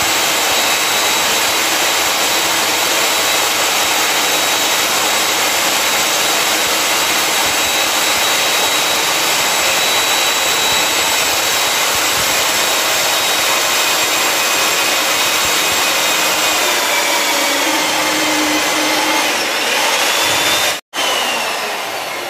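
Stand-mounted electric diamond core drill with a water-fed bit running steadily as it bores into a concrete floor: a constant motor whine over a coarse grinding noise. Near the end the sound cuts out for an instant and comes back quieter, its whine falling in pitch.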